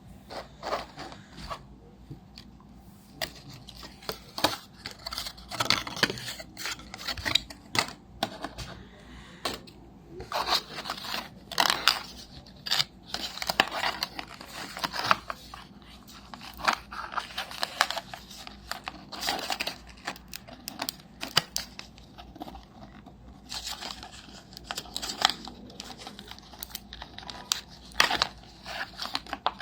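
Packaging being handled and opened: irregular tearing, crinkling and scraping, with many short sharp rustles.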